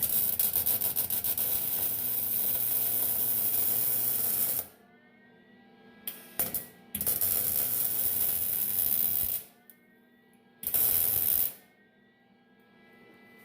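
Electric welding arc crackling in bursts: one of about four and a half seconds, a brief blip, one of about two and a half seconds, and a short one near the end. The arc is laying weld beads down the length of a seized grade 5 bolt to stiffen it so it can be turned out.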